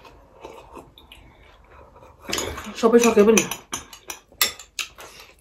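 Metal spoons clinking and scraping against glass soup bowls in a run of sharp clicks, thickest over the last couple of seconds. A brief wordless voice sound comes from about two to three and a half seconds in.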